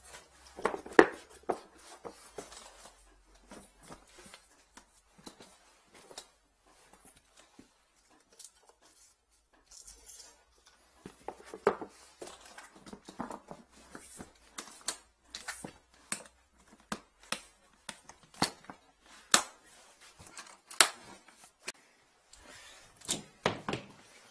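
Scattered sharp clicks and knocks of gear being handled: a drain inspection camera's cable reel being worked and packed into its hard carrying case. The loudest knock comes about a second in.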